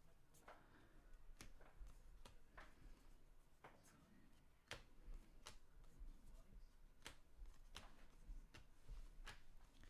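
Faint soft clicks of baseball trading cards being slid off a handheld stack one at a time, about one a second.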